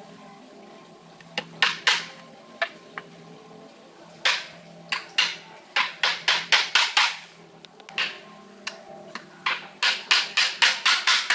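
Claw hammer driving nails through a small wooden block into pine boards: scattered sharp blows at first, then quick runs of about five or six strikes a second.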